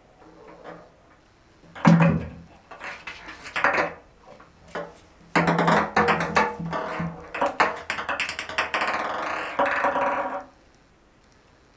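A ping pong ball clattering and rolling around an empty bathtub as a cat bats at it: a quick flurry of bounces about two seconds in, then a long run of fast rattling clicks, ringing in the tub, that stops suddenly near the end.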